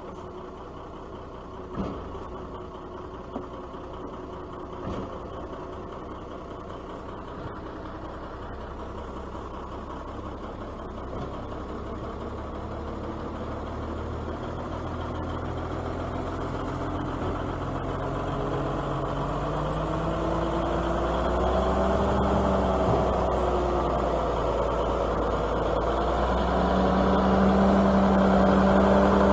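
M816 military wrecker's diesel engine running as the truck drives slowly with a concrete slab slung from its boom, growing steadily louder as it comes close, its pitch rising and falling in the second half. Two short knocks about two and three and a half seconds in.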